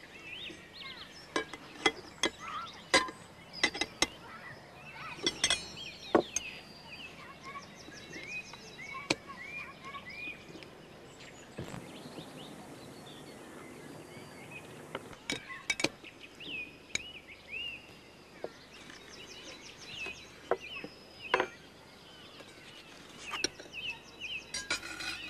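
Cutlery and china clinking in a scatter of short sharp clicks, with birds chirping in the background.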